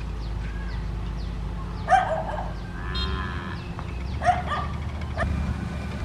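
A dog barks three times, loudest about two seconds in and again a little after four seconds, over the steady low running of a heavy construction machine's engine.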